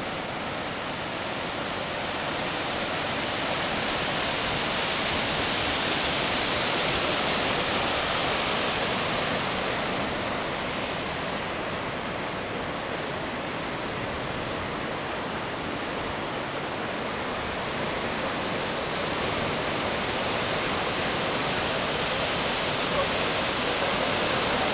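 Heavy sea surf breaking over rocks and onto sand: a continuous rush of foaming water that slowly swells and eases.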